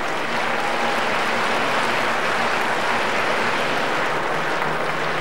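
Steady crowd noise with applause from the audience in a weightlifting hall.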